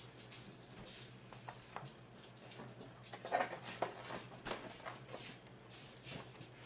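Scattered light clicks and small crackles of eating and handling food at close range, with a brief louder cluster a little over three seconds in.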